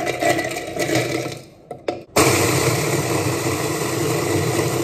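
Marigold biscuits clatter into the plastic jar of an electric mini chopper. About two seconds in, the chopper's motor starts suddenly and runs steadily, grinding the biscuits into crumbs.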